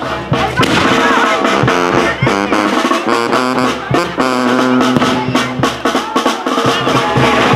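Brass band playing Oaxacan regional music: horns holding steady notes over drum beats.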